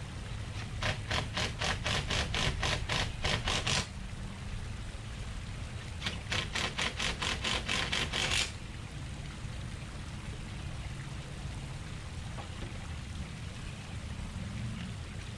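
Cordless power drill running in two bursts against a brick wall, the first about three seconds long and the second about two and a half, each a pulsing rattle, as the outdoor speaker's mounting bracket is fixed into the mortar. A steady low rumble of background noise runs underneath.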